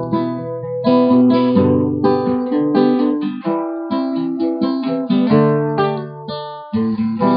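Acoustic guitar strumming and picking chords in an instrumental passage between the sung lines of a French-language song.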